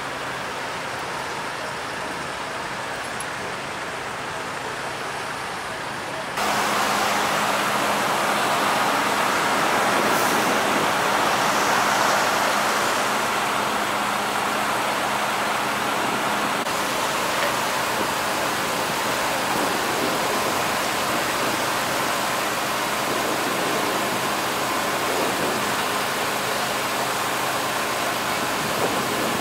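Steady road-traffic and vehicle engine noise. It gets louder suddenly about six seconds in, and a steady low hum runs with it for roughly ten seconds after that.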